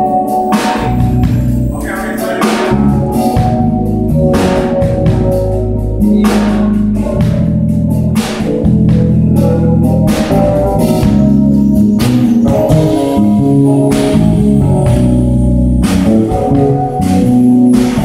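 A live jazz trio playing: keyboard organ chords and electric bass lines under a drum kit keeping time with cymbal and drum strikes.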